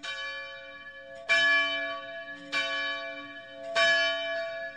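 A single bell tolling, struck four times about every second and a quarter, the same pitch each time, each stroke ringing on into the next.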